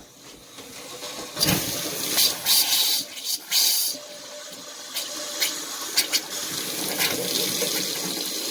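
Hot water running through the freshly repaired supply, gushing unevenly for the first few seconds, then flowing steadily.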